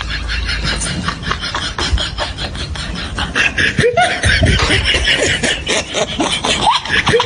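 Rhythmic, beatbox-like vocal sounds mixed with snickering laughter, a quick even pattern of short strokes.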